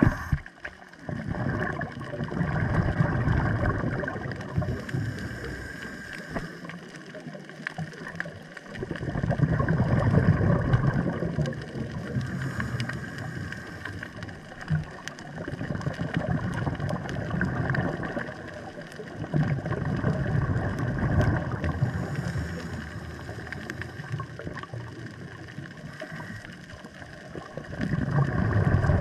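Underwater, a scuba diver's regulator exhaling: a rush of bubbling swells up and fades about five times, several seconds apart. A fine crackle runs underneath.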